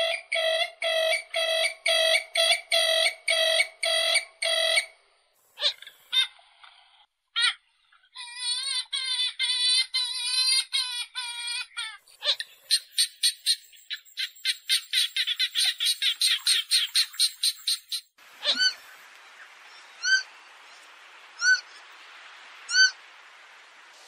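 Recorded purple swamphen calls spliced one after another, played as a trapping lure: a fast run of loud, evenly repeated calls, about two and a half a second, then warbling trills, a rapid clicking chatter, and a few single high chirps near the end.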